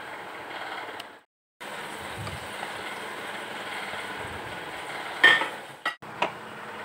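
Plastic spoon stirring and scooping sticky glutinous rice soaked in coconut milk in a metal pot, over a steady hiss. About five seconds in, a loud sharp clank of the spoon against metal, then two lighter knocks.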